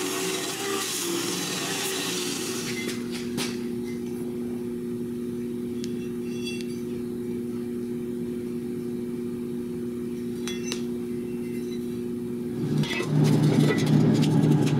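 Belt grinder working a steel plate for the first couple of seconds, then running on with a steady two-note hum. About 13 s in, a portable band saw starts cutting steel square tubing, much louder, with a pulsing low note.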